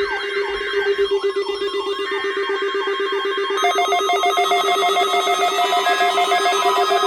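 Electronic alarm tones: a fast warbling tone repeating about three times a second over a steady low tone, with further steady and pulsing tones joining about three and a half seconds in.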